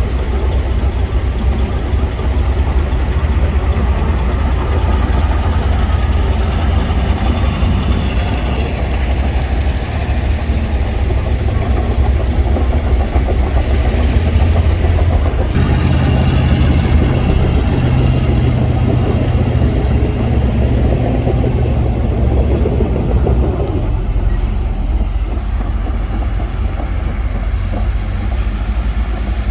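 Heavy diesel engines of a bulldozer and a stuck dump truck running steadily and loudly, with a deep rumble. The sound shifts abruptly about halfway through and again near the end.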